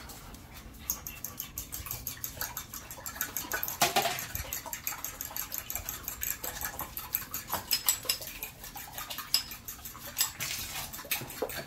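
Eggs and milk being beaten in a glass bowl, a utensil clicking rapidly and steadily against the glass at about five strokes a second.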